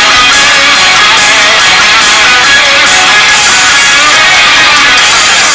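Loud background rock music with distorted electric guitar.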